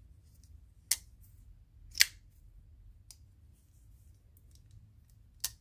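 Ontario RAT Model 1 folding knife being flicked open and shut: four sharp metallic clicks of the blade and liner lock, the second the loudest and the third faint.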